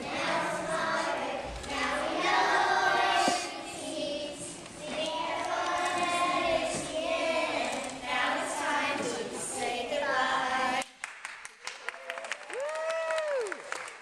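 A group of voices singing a children's song, which cuts off abruptly about eleven seconds in. Scattered clapping follows, with one short voice call rising and falling in pitch near the end.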